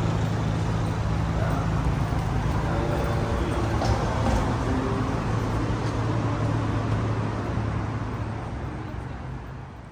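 City traffic noise with a steady low engine hum, fading out over the last few seconds.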